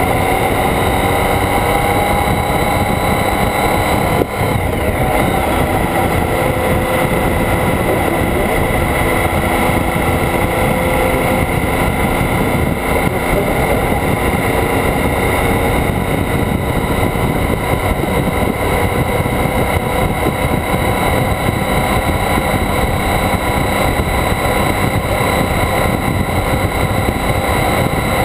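Motorcycle riding at speed, heard from a camera mounted on the bike: steady wind rush and road noise over the engine, whose note rises a little as the bike gathers speed from about 40 to 55 mph. There is a short dip in level about four seconds in.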